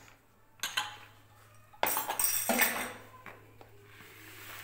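Glass tumblers and a saucer with a metal spoon being picked up and moved, clinking and clattering: a short clatter about half a second in, then a longer, louder run of clinks around two seconds in.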